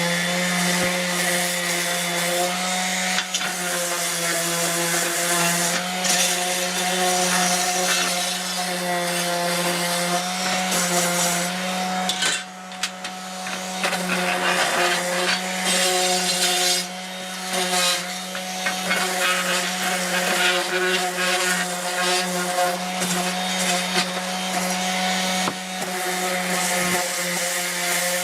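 DeWalt cordless orbital sander running steadily with a constant motor hum and the hiss of sandpaper rubbing on wood, dipping briefly twice.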